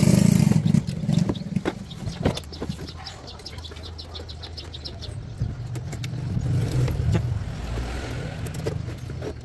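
A motor running, loud at first, quieter through the middle and swelling again in the second half. Scattered clicks and knocks sound over it, with a quick run of light ticks a few seconds in.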